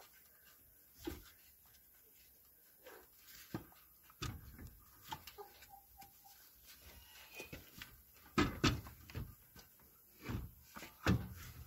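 Scattered metal clinks and knocks from hand work on the underside of a car near the engine and gearbox, at irregular intervals. The loudest is a quick cluster of knocks about eight and a half seconds in, with another sharp knock near the end.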